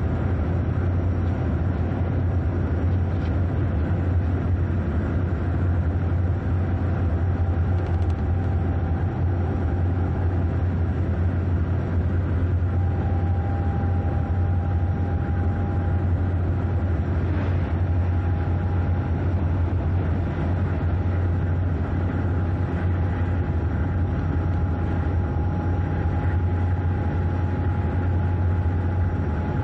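Steady running noise of a moving train heard from the driver's cab: a deep, even rumble with no breaks. A faint steady whine comes in about halfway through and holds.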